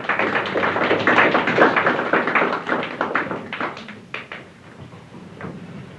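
Audience applauding, the clapping thinning out to a few scattered claps after about four seconds.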